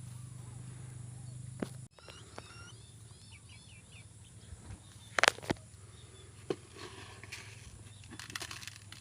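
A quick series of short, high chirps from a pet chicken, then several sharp taps or knocks, the loudest about five seconds in and a cluster near the end.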